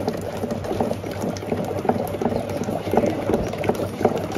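Lassi being churned by hand with a wooden churner in a steel pot: a steady, dense bubbling and sloshing of frothy liquid.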